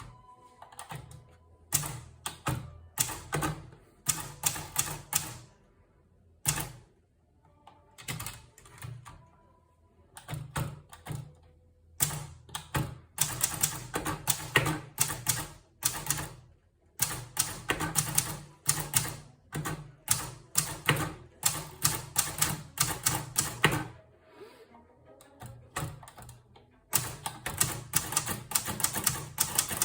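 Hermes Baby manual portable typewriter being typed on: runs of rapid key strikes, broken by short pauses of about a second.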